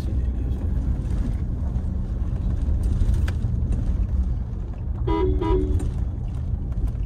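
Two short car-horn toots about five seconds in, over the steady low road rumble of the car being driven.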